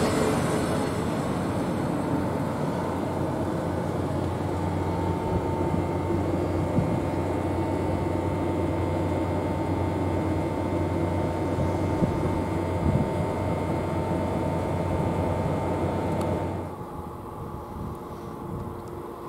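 PKP Intercity passenger coaches rolling along the platform with a steady rumble, a low hum and a thin steady whine. A few seconds before the end it drops to a quieter, fainter background.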